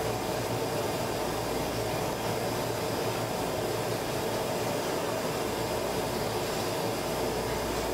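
Glassblowing glory hole furnace running while a piece on a punty rod is reheated in it: a steady rushing noise with a faint hum, unchanging throughout.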